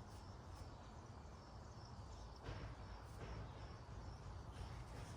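Faint outdoor ambience of crickets chirping in a steady run of short high chirps, a few a second, over a low background rumble.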